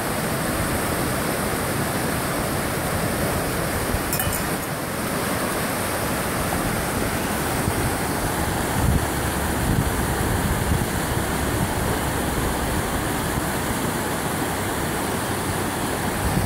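Whitewater rapids of a fast mountain creek rushing steadily over rocks, with a few low thumps midway.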